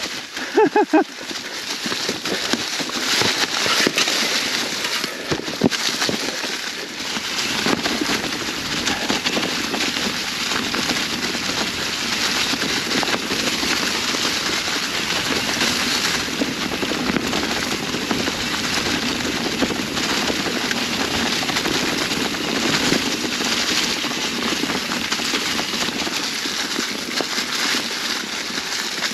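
Mountain bike rolling downhill over a trail covered in dry fall leaves: a steady crackle and crunch of leaves under the tyres, with scattered clicks and knocks from the bike on the rough ground.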